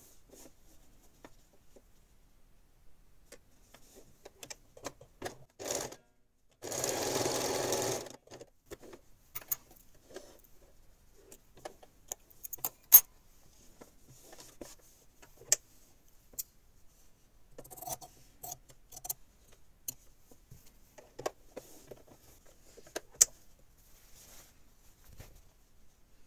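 Domestic electric sewing machine stitching in one short run of about a second, partway through. Before and after it come scattered light clicks and taps of fabric being handled and repositioned.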